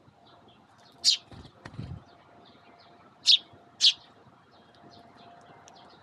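Eurasian tree sparrows chirping: three loud, short chirps, one about a second in and two close together a little past three seconds, with fainter chirps between. A few soft low thumps sound around a second and a half in.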